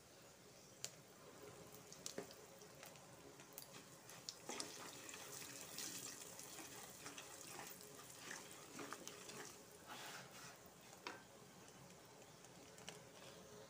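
Hot oil sizzling faintly in a pot with dried red chillies and tempering spices, a soft steady hiss with scattered small pops and crackles.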